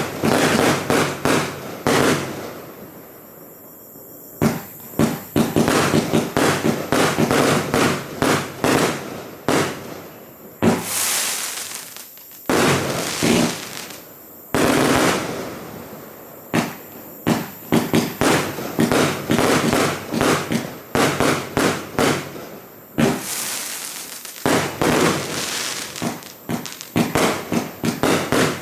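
Joker Fireworks VIP14 consumer fireworks cake, a 136-shot battery of 1–1.2 inch calibre, firing in rapid volleys. Launch thumps and aerial bursts come several a second, broken by a few short lulls.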